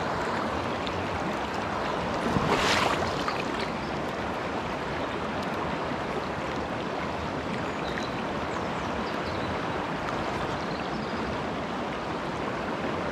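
Shallow river running over a stony, weedy bed, a steady rush of flowing water. About two and a half seconds in there is a brief louder swish.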